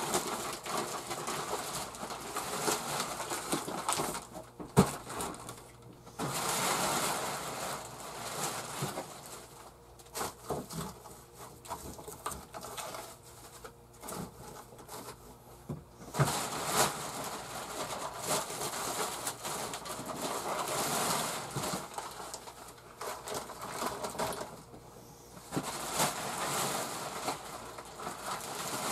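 Plastic-wrapped packages of meat being rustled and stacked into an upright freezer: bursts of rustling several seconds long with pauses between, and occasional knocks, the sharpest about five seconds in.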